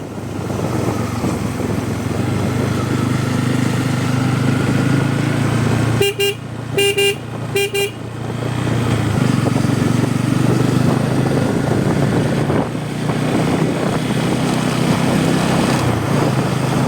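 Bajaj Pulsar N250's 250 cc single-cylinder engine and exhaust running on the move. About six seconds in, a horn beeps four times in quick succession while the engine eases off, and the engine picks up again a few seconds later.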